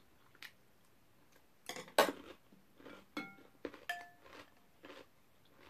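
Chopsticks and a spoon knocking and clinking against a glass bowl of dumpling soup while eating. There are a handful of sharp knocks, the loudest about two seconds in, and two clinks about three and four seconds in that ring briefly.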